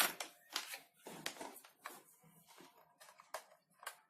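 Hands handling a micro USB charging cable: a string of short, irregular light clicks and rustles, about six or seven in all.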